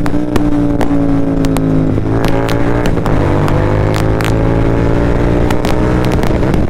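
Royal Enfield Continental GT 650's 648 cc parallel-twin engine running through an aftermarket Moto Torque exhaust while the bike is ridden in third gear. The engine note drifts down over the first two seconds, then climbs slowly as the bike pulls again.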